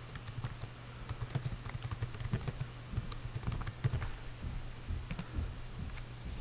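Typing on a computer keyboard: a run of quick key clicks for about four seconds, thinning out after, over a steady low hum.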